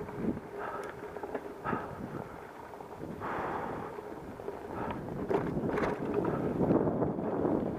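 Mountain bike ridden fast down a dirt singletrack: tyres on loose dirt and rocks, with frequent sharp rattles and knocks from the bike over roots and stones, and wind buffeting the microphone.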